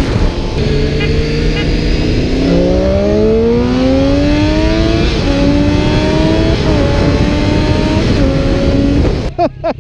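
Engine under hard acceleration through the gears, with wind rush: a steady note for the first couple of seconds, then a climbing pitch that dips briefly at each of three upshifts about a second and a half apart. Near the end it cuts off abruptly.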